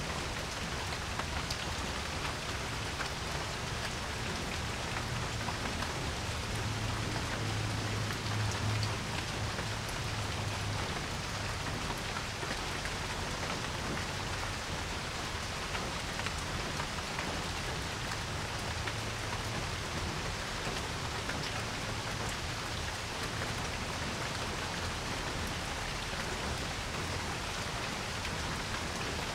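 Steady rain falling on a porch: an even hiss with scattered ticks of individual drops. A low rumble swells and fades between about six and eleven seconds in.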